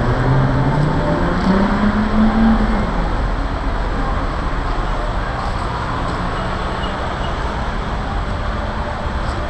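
Road traffic: a motor vehicle accelerating, its engine note rising over the first two or three seconds before fading. After that comes the steady noise of passing traffic.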